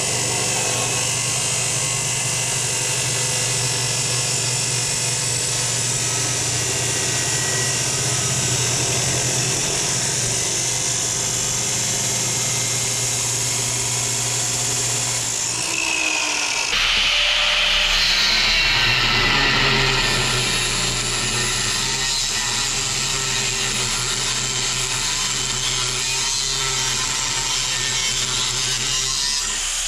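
Abrasive chop saw cutting through quarter-inch steel angle iron, running steadily. About halfway through it gives way abruptly to a handheld angle grinder grinding a steel piece clamped in a bench vise.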